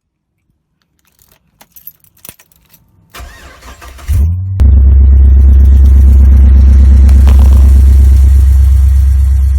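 Keys clicking, then a V8 car engine cranking over on the starter, catching about four seconds in and settling into a loud, steady idle that eases off slightly near the end.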